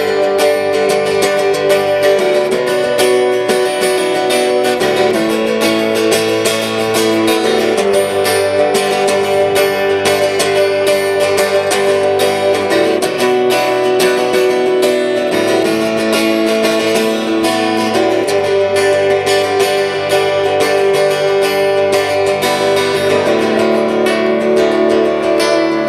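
Acoustic guitar strummed in a steady rhythm, chords changing every couple of seconds, with no singing.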